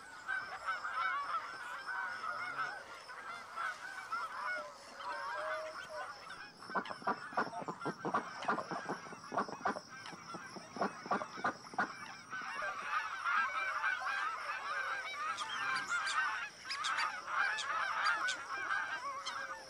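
A large flock of geese honking in a dense, continuous chorus of many overlapping calls. Through the middle the sound turns choppier, with sharper clustered strokes.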